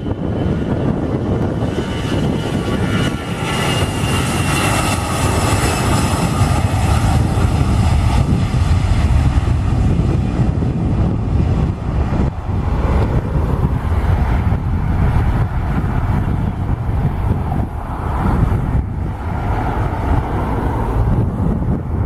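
Airbus A320-200 jet engines running at takeoff thrust, a loud steady low rumble with a high whine over it for the first several seconds.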